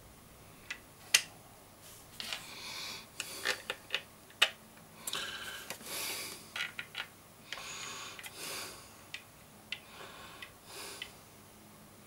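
A Boss joystick being handled after reassembly: a run of sharp plastic clicks, the loudest about a second in and another near four and a half seconds, mixed with short bursts of rustling.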